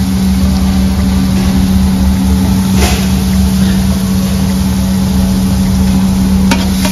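Loud, steady mechanical drone of commercial kitchen equipment, with a constant low hum and rumble under it. Two light clicks come about three seconds in and near the end.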